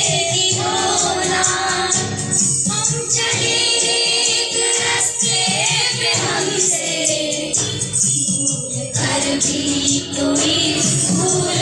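A group of boys singing a song together in unison, in phrases with short breaths between them, over a steady rhythmic percussion beat.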